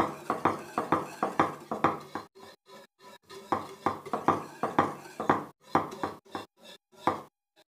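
Spoon stirring a thickening cornflour-and-orange-juice mixture in a cooking pot, scraping and knocking against the pot in quick repeated strokes, about three a second, growing sparser near the end.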